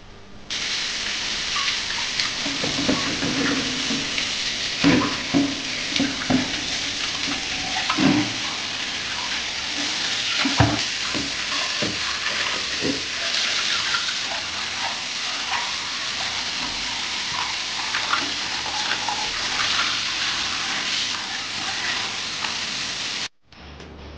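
Kitchen tap running hard into a stainless steel sink, the water splashing into a ceramic bowl as raw chicken breast is rinsed by hand, with a few knocks from the bowl and hands. The water starts about half a second in and cuts off suddenly near the end.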